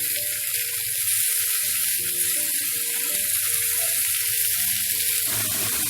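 Whole chicken and sliced ginger sizzling steadily in hot oil in a frying pan.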